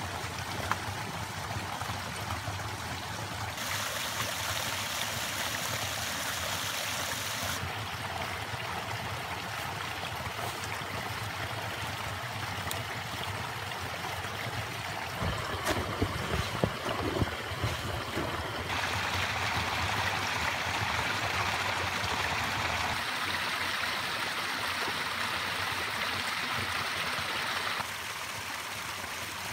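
Steady rushing and gurgling of a small forest creek, its level stepping up and down several times. A few brief knocks and rustles come in the middle.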